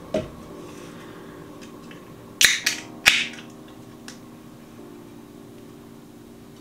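A beer can being opened: a sharp click, then about two and a half seconds in two short hissing cracks half a second apart as the pull tab breaks the seal and the gas escapes.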